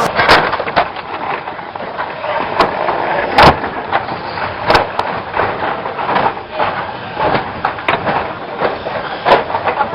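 Banger-racing cars running, with many sharp bangs of impacts; the loudest come about three and a half and about five seconds in.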